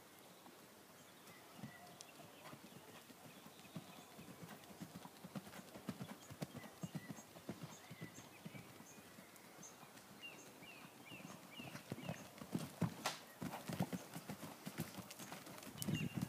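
Horse cantering with a rider on a soft arena surface: a steady rhythm of hoofbeats that grows louder near the end as the horse comes close.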